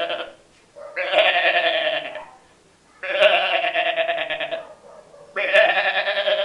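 A man imitating a goat with his voice: a series of long, wavering bleats with short pauses between them, the tail of one at the start and three more after it.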